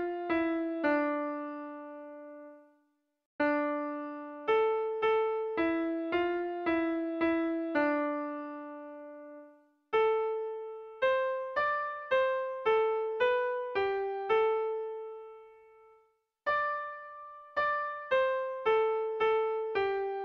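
Background music: a solo piano-like keyboard melody played in short phrases of a few notes each, every note fading away, with brief silences between phrases.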